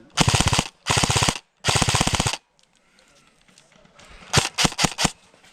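An airsoft gun fires three short full-auto bursts in quick succession, each a fast rattle of shots. A few seconds later come five or six separate single shots.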